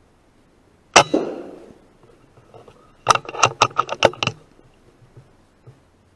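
A single shot from a Theoben Rapid .25 FAC pre-charged air rifle about a second in, one sharp crack with a short ringing tail. About two seconds later comes a quick run of six or seven metallic clicks and clacks, the bolt being cycled to load the next pellet.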